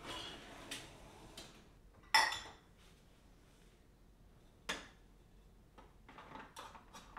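Dishes being taken out of a dishwasher rack: crockery clinking against crockery. The loudest is a sharp, ringing clink about two seconds in, another comes about halfway through, and lighter clinks and clicks follow near the end.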